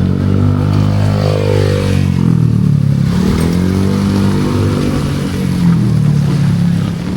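A motor vehicle's engine running close by, its pitch dipping and rising twice in the first few seconds, then holding steadier.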